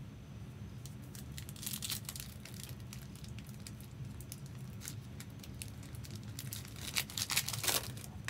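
Crinkling and rustling of packaging being handled, in short bursts with the loudest cluster about seven seconds in, over a steady low hum.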